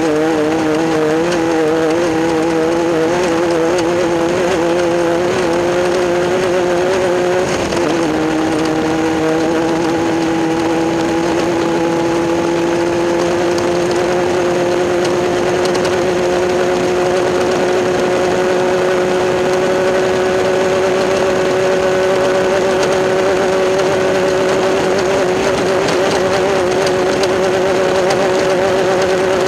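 Class 10 off-road race buggy engine running hard at high revs. The pitch wavers for the first several seconds, dips briefly about eight seconds in, then holds high with a long, slow climb in revs.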